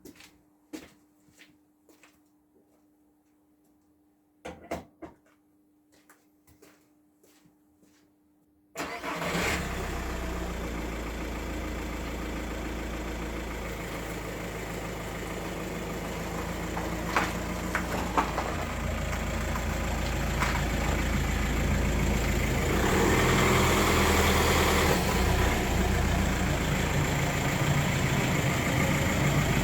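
A few faint clicks and knocks, then about nine seconds in a Volkswagen Passat's 1.9 TDI four-cylinder diesel engine starts and settles into a steady idle, growing a little louder near the end.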